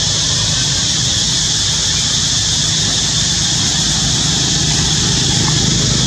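Steady outdoor background noise: a constant high-pitched hiss with a low hum beneath it, unchanging and without distinct events.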